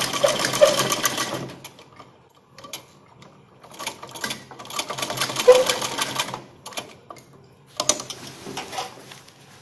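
Domestic sewing machine stitching through a fabric waistband in stop-start runs of rapid needle strokes. A longer run ends about a second and a half in, then several shorter runs follow with brief pauses between.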